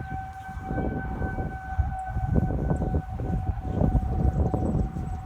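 Federal Signal 2001 outdoor warning sirens sounding one steady tone for a tornado siren test, over a low, uneven rumbling noise.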